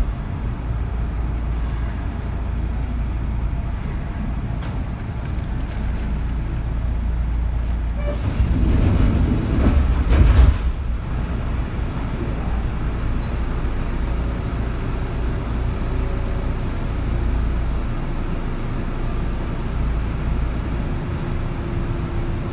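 Kintetsu 3200 series electric train running, heard inside motor car Mo 3205: a steady rumble of wheels and running gear that grows louder for about two seconds, roughly eight to ten seconds in.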